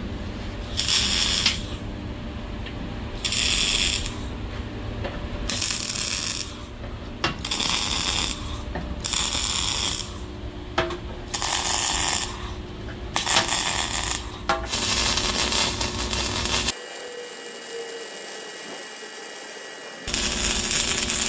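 Ratcheting tool tightening fasteners on a steel wood stove during assembly. It goes in about nine short bursts of rapid clicking, each about a second long, with pauses between them.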